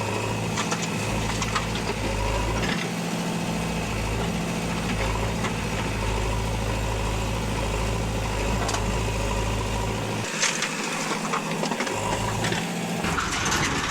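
Heavy diesel machinery engine running steadily. Its deep note changes several times, and scattered sharp clanks and knocks sound over it.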